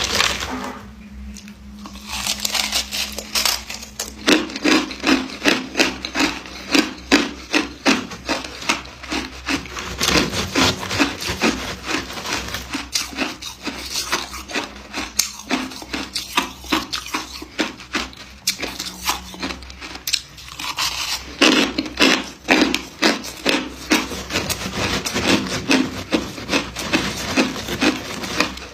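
Ice being chewed: a fast run of crunching bites, several to each second. There is a quieter lull at the start and another about two-thirds of the way through.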